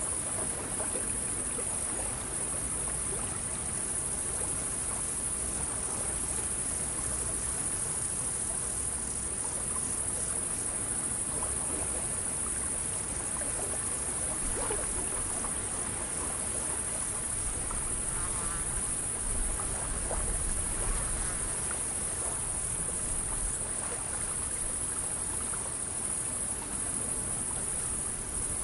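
A steady, high-pitched chorus of insects chirring over gently lapping water.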